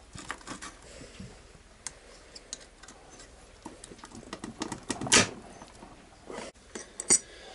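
Light metallic clicks and clinks of hand tools and loose gearbox parts being picked up and handled on a workbench, with a louder brief clatter about five seconds in.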